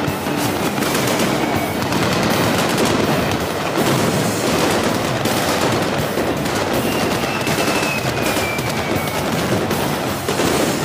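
Rapid, continuous machine-gun fire, many shots a second, over background music.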